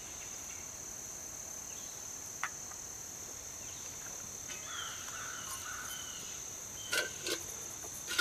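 Insects chirring steadily in one high, even band. There is a single sharp click about two and a half seconds in, and a few knocks and clinks near the end as the metal camp pot is handled.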